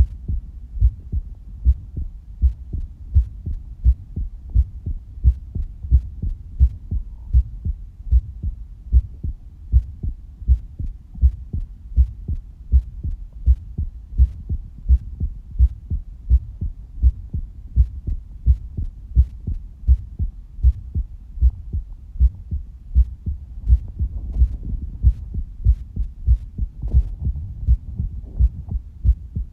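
Amplified human heartbeat: a steady, regular run of low thumps.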